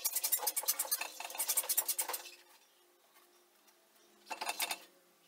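Metal clinking and rattling as a Ford flathead V8 hanging on an engine crane's chain is worked into position in the chassis: a fast run of clinks for about two seconds, then a shorter burst near the end.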